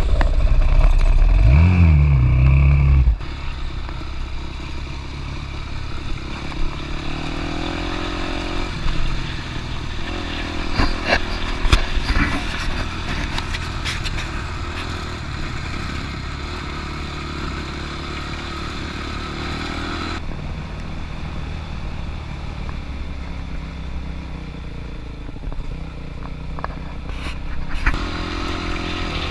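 Dirt-bike engines running on a dirt trail, heard from a camera on a moving bike. The engine note rises and falls sharply with the throttle in the first few seconds, then settles into steadier running with a few rattling clicks.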